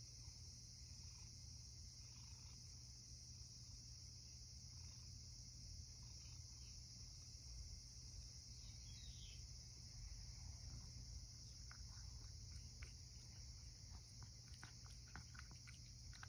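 Near silence: a steady, faint, high-pitched hiss, with faint soft clicks in the last few seconds as a cat starts eating wet canned cat food from a ceramic bowl.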